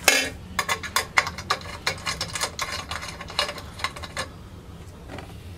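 Quick, irregular clicks and clatter of small tools and hardware being handled on a workbench, opening with a short rustle and growing quieter after about four seconds.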